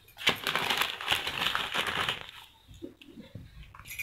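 Crinkling, crackly rustle of a banana leaf being handled and shifted, lasting about two seconds, then fading to a few soft, scattered handling sounds.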